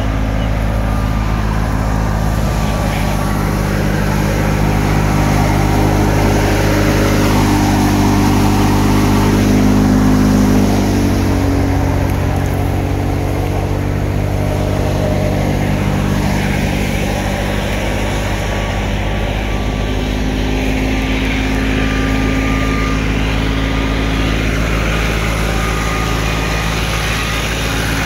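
Fiat 480 tractor's diesel engine running steadily under load as it drives a wheat thresher, with the thresher's rushing whir of straw and grain going through it. The engine note dips about ten seconds in.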